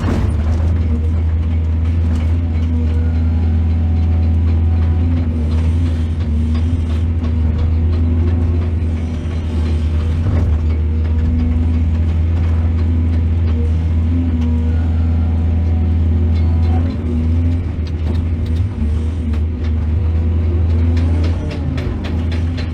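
Excavator's heavy diesel engine running steadily with a deep, continuous drone, with brief dips in level about two thirds of the way through and near the end.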